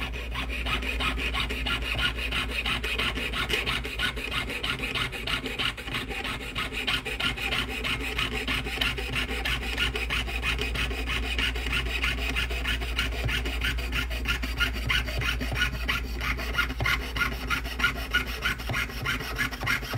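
Jeweller's saw cutting through 14-gauge copper sheet with quick, even back-and-forth strokes: a steady, rapid rasping.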